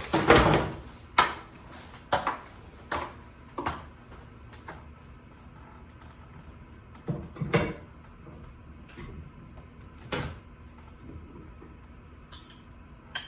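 Scattered metal clanks and clicks from hand work on a garage door's torsion spring hardware, irregular knocks about a second apart at first, then fewer, with a louder pair of clanks about halfway through.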